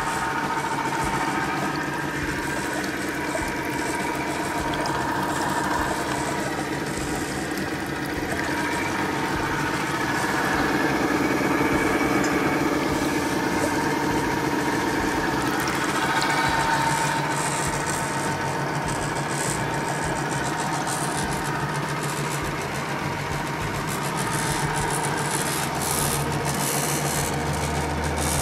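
Wet bead mill and its feed pump running: a steady electric-motor hum and whir from the machinery, with the level swelling slightly now and then.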